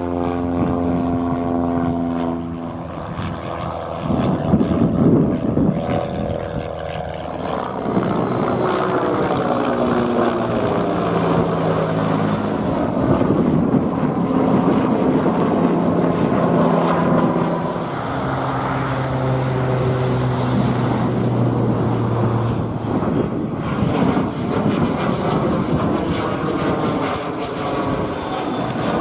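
A high-wing Cessna light aircraft's propeller engine drones steadily as it passes low overhead, then aircraft engines keep sounding overhead, with a high jet whine in the second half and a high tone falling in pitch near the end as a jet airliner climbs past.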